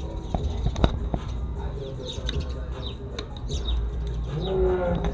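Small birds chirping again and again, over a low steady rumble on the microphone, with a few sharp clicks in the first second.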